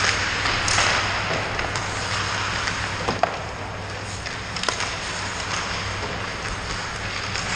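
Ice hockey rink sounds: skate blades scraping the ice, with a few sharp clacks of pucks off sticks and boards, over a steady low hum.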